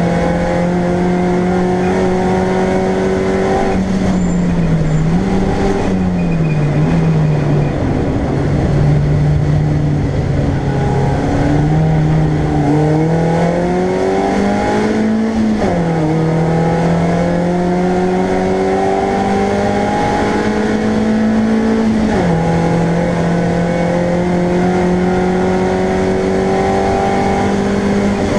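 BMW Compact race car engine heard from inside the stripped, caged cockpit, pulling hard through the gears. The revs climb steadily in each gear and drop sharply at the gear changes: a few seconds in, about halfway and about three-quarters through. A steady rush of road and wind noise runs underneath.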